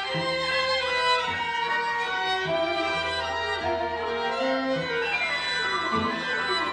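Music led by violin over lower strings and a steady low drone, with a falling run of notes near the end.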